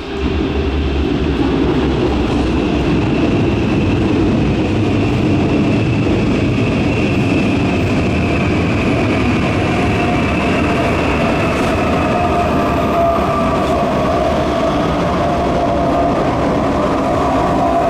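An electric train running at a station platform: a loud, steady rumble of wheels on rails, with motor whine tones that slowly fall in pitch.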